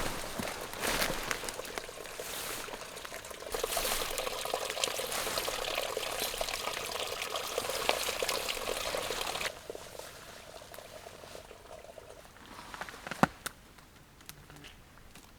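Water pouring or running for about nine seconds, then stopping abruptly, leaving a faint trickle and a few small clicks.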